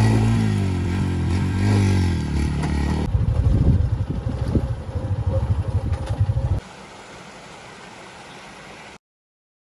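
Motorcycle engine revving as the rear wheel spins in loose gravel, its pitch rising and falling, then running on with a choppier, uneven sound for a few seconds. It cuts to a quieter, steady rush of water from a small waterfall, which stops abruptly near the end.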